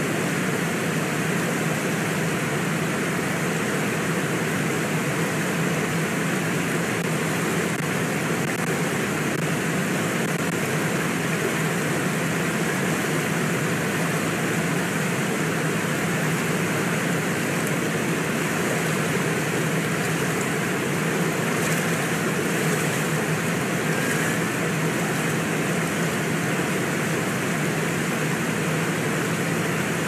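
Steady rush of a fast-flowing river running over rocks and rapids, an even, unbroken roar of water.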